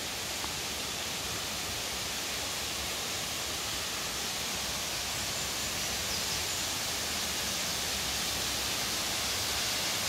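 Steady hiss of rushing water from a waterfall, growing slowly louder.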